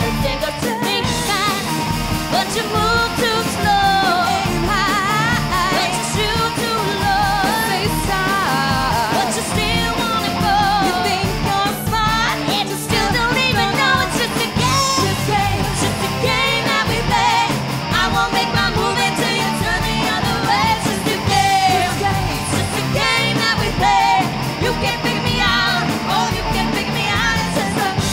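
A rock band playing live: women singing the lead over electric guitar, electric bass and drums.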